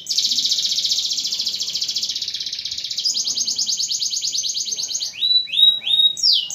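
Domestic canary singing: a long, fast rolling trill that changes to a second trill about three seconds in, then a few quick falling notes near the end.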